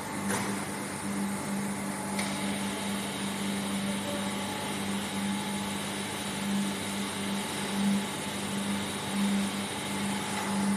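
Vacuum-process molding line machinery running steadily, a low hum that swells and fades unevenly under a constant machine drone. There is a click just after the start, and about two seconds in a sharp sound sets off a high hiss that carries on.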